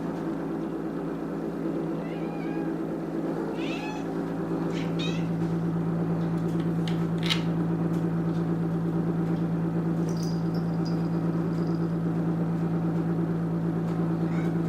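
Domestic cat meowing twice in the first four seconds, over a steady low hum that gets louder about five seconds in. A few light clicks follow.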